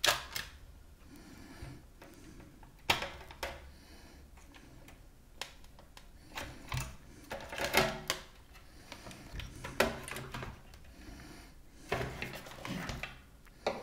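Hands handling the opened Sanyo DC-DA90 micro system: scattered clicks, knocks and rattles of its plastic chassis, metal shielding and circuit boards being lifted and shifted, with a faint low hum underneath.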